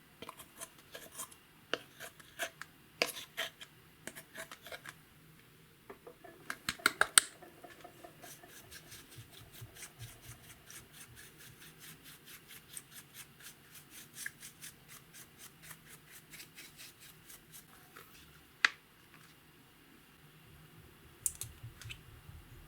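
Sharp clicks and scratches of a hard tool working against a hard surface, loudest in a quick cluster about seven seconds in, then a fast even run of light scratchy ticks, about five a second, ending in a single sharp click.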